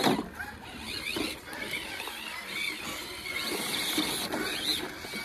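Electric motor and drivetrain of an RC scale rock crawler whining in short wavering bursts as it is driven on wet rock, with a sharp knock right at the start.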